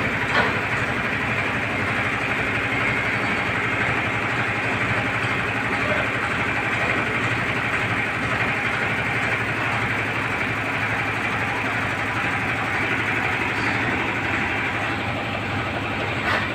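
Tractor engine running a mounted air compressor, a steady unbroken mechanical drone with no change in speed. A brief click comes about half a second in and another near the end.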